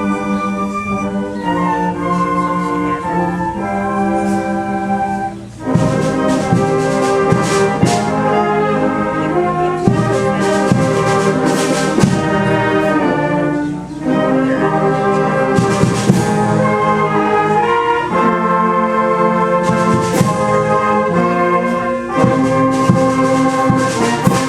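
Youth wind ensemble playing the closing bars of a concert band piece: held brass chords, then about five seconds in a louder full-band passage with repeated sharp percussion strikes. It ends on a final chord that cuts off near the end.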